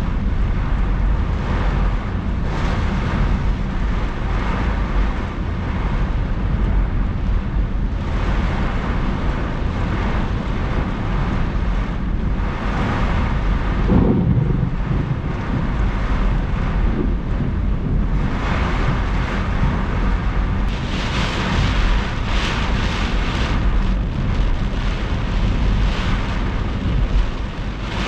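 Heavy thunderstorm rain pelting a moving car's windshield and body, heard from inside the cabin with wind buffeting. The downpour grows heavier about twenty seconds in.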